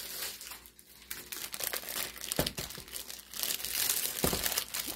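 Clear plastic wrap crinkling as a plastic-wrapped zippered storage case is handled, louder in the second half, with two dull thumps.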